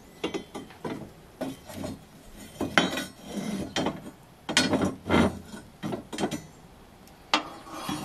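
Iron trivet and long iron fire tongs clinking, knocking and scraping on a tiled hearth as the trivet is set down over the firewood and pushed into place, in irregular bursts of clatter.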